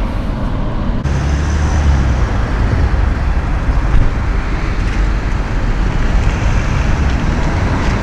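Steady road traffic noise: a low rumble under a constant hiss, growing stronger about a second in.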